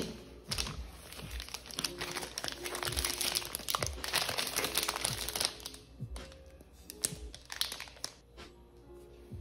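Background music over crinkling and rustling, densest in the middle, with several light knocks.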